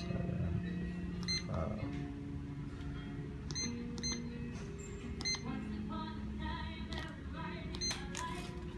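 Electronic door keypad beeping several times as a shower PIN is keyed in, short spaced beeps over background music with held notes.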